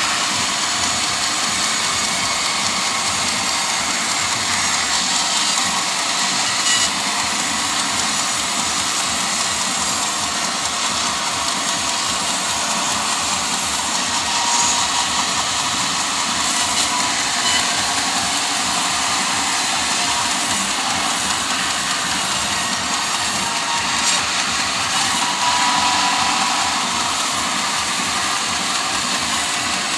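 Sawmill saw running steadily, a loud even noise with small swells in level.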